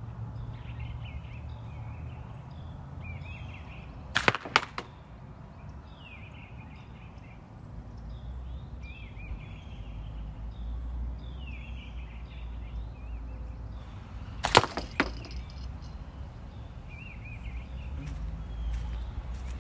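Two slingshot shots about ten seconds apart: each is a steel ball striking the hanging curtain of a catch box, heard as a quick burst of sharp cracks lasting about half a second. Birds chirp in between.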